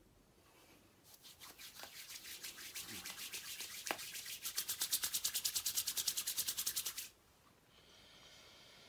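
Palms rubbing together over a dab of whipped beard butter: quick back-and-forth strokes, about eight a second, growing faster and louder before stopping abruptly about seven seconds in. A faint, steady breath follows as he sniffs the butter through his cupped hands.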